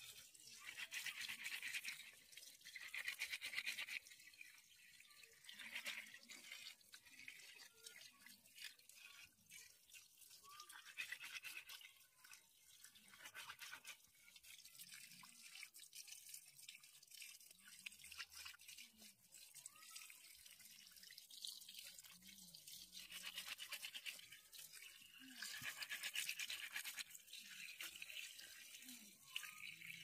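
Wet hands rubbing and rinsing bunches of chive roots under a thin stream of running water, with scratchy scrubbing and splashing that comes in irregular bursts.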